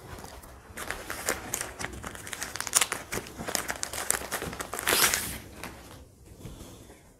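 Clear plastic packaging bag crinkling as a folded cloth suit is pulled out of it. A dense run of crackles builds to the loudest rustle about five seconds in, then it goes quieter.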